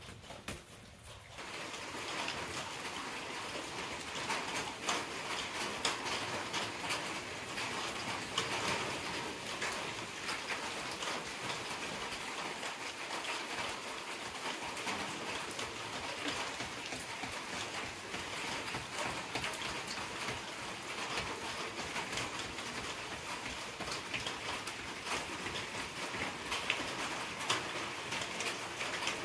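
Heavy rain falling steadily, a dense patter of drops. It comes in about a second and a half in and then keeps an even level.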